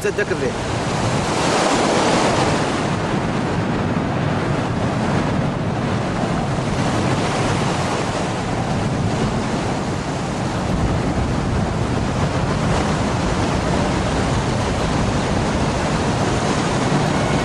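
Strong wind buffeting the microphone over breaking Atlantic surf: a steady rush of noise that swells a little about two seconds in.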